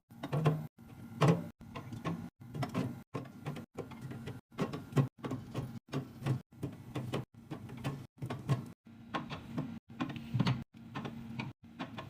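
Clicks, taps and knocks of plastic containers, lids and items being handled and set into a mini fridge, in short spliced clips broken by brief silent cuts, over a low steady hum.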